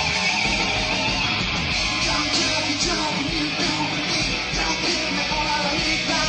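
Live rock band playing loud, dense music with electric guitars to the fore.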